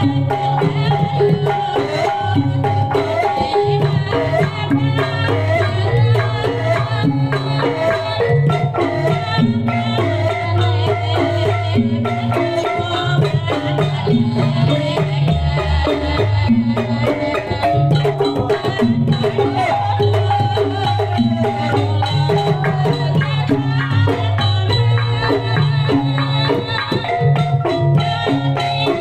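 Kuda lumping accompaniment music: Javanese gamelan metallophones and hand drums playing a continuous, repeating rhythmic pattern.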